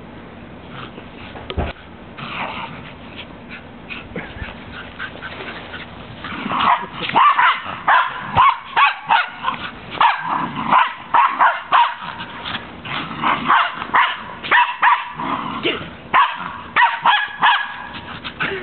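Terriers barking excitedly at play: a fast run of loud, sharp barks about twice a second that starts about six seconds in, after a quieter stretch.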